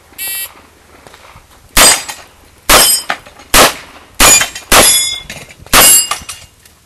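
A shot timer beeps briefly, then a 4-inch Smith & Wesson 625 revolver fires six shots in about four seconds, the last after a slightly longer pause.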